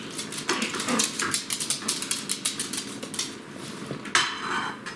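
Pomeranians' claws clicking on a laminate floor as the dogs trot about, in quick irregular ticks, with one short louder sound about four seconds in.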